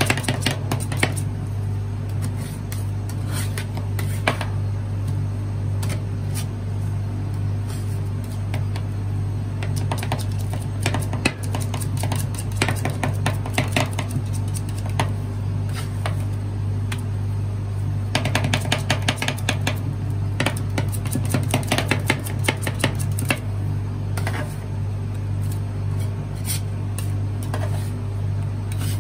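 Metal spatulas chopping and scraping strawberry marshmallow cream on a stainless steel rolled-ice-cream cold plate, in runs of rapid taps, over the steady low hum of the cold plate machine.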